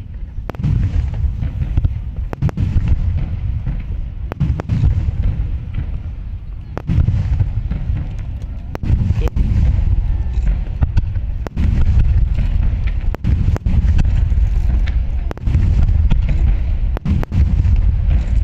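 Large aerial fireworks bursting in quick succession: deep booms and continuous rumbling, with many sharp cracks scattered throughout.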